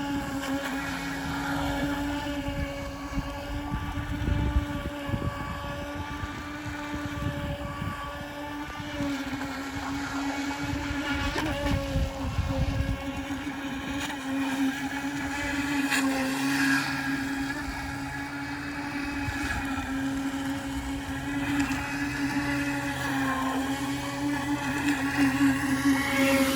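Electric motor of a radio-controlled Arrow boat whining steadily as it runs, its pitch wavering slightly with throttle. There is a low rumble of wind on the microphone, mostly in the first half.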